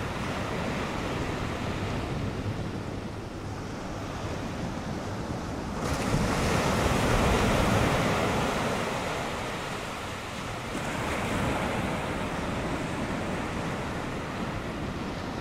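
A steady rushing noise with no tones or rhythm, with the sound of surf or wind. It steps up abruptly about six seconds in, then again near eleven seconds.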